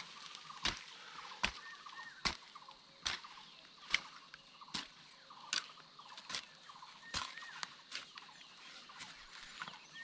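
Short-handled hoe chopping into soil in a steady rhythm, a sharp strike about every 0.8 seconds. Small birds chirp in the background.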